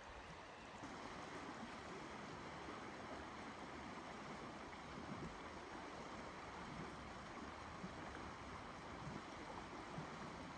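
Steady rush of the Lower Deschutes River flowing past, an even wash of moving water.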